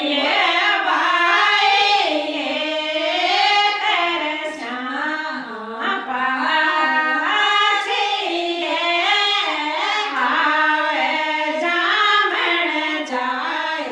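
Group of women singing a Rajasthani folk wedding song together in a continuous melodic line, as sung at the mayra (bhaat) ritual.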